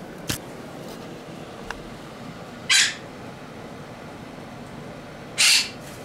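Parrot giving two short, harsh squawks about two and a half seconds apart, with a faint click about a third of a second in.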